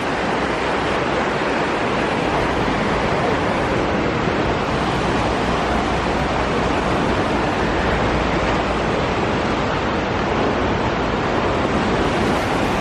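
Steady, loud rush of flowing river water, an unbroken wash of noise.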